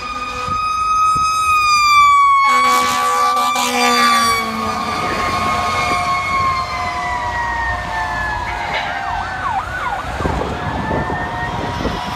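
Emergency-vehicle siren with a slowly wavering wail. A harsher, lower-pitched blast joins from about two and a half to four and a half seconds in. Quick falling sweeps come near the ten-second mark.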